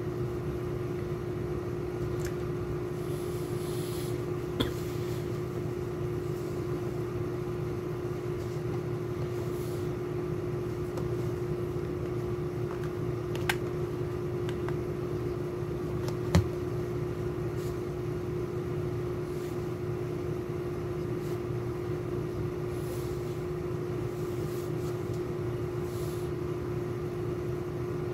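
A steady machine hum with one constant tone, broken by three small clicks, the sharpest about sixteen seconds in.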